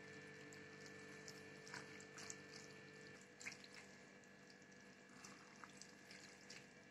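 Near silence: a faint steady hum and a few faint soft ticks from a silicone spatula stirring cooked pasta with stewed meat in a frying pan.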